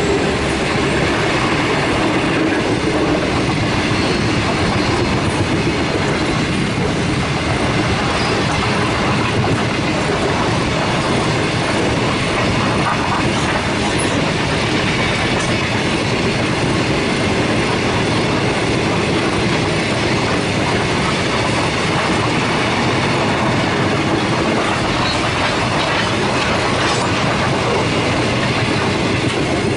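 Grain hopper wagons of a wheat train rolling past close by: a loud, steady noise of steel wheels running on the rails.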